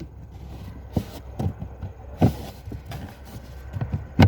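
An interior panel being handled and fitted back into place: scattered light knocks and rubs, the sharpest one near the end.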